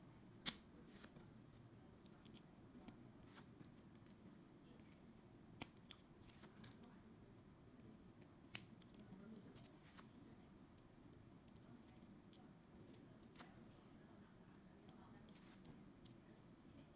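Small plastic building-block pieces clicking as they are pressed together, black wheels being snapped onto axle pins. A few sharp clicks, the loudest about half a second in, with fainter handling ticks over near-silent room tone.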